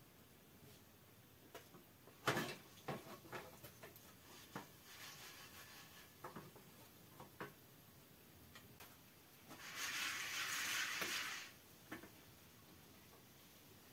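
A copper popcorn pot being handled on a small burner. There are scattered faint clicks and light knocks of the pot and its lid, then a dense hissing rattle for about two seconds, starting about ten seconds in, as the pot is worked.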